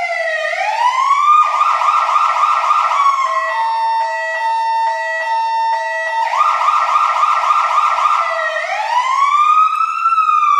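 Fire truck siren cycling through its patterns: a slow wail rising at the start, a fast warble from about a second and a half in, a section of alternating steady tones in the middle, the fast warble again, then a slow wail rising and falling near the end.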